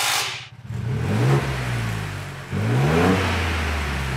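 A power tool whirs briefly and stops about half a second in; then the Ford Bronco's 2.7-litre twin-turbo V6 is revved twice, its pitch rising and falling with each blip, through a Magnaflow muffler with only an end cap and the J-pipe removed. The exhaust note is a low rumble.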